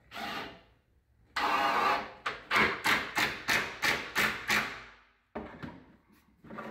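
Makita cordless driver driving a screw through the clamped cabinet face frames: a steady run of the motor, then a quick series of about ten short bursts, roughly four a second, as the screw is driven home. A brief rattle of a screw taken from its box comes just before.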